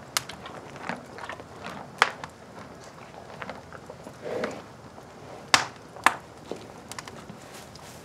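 Wood fire in an open stone fireplace crackling, with sharp irregular pops over a low steady hiss; the two loudest pops come about two seconds and five and a half seconds in.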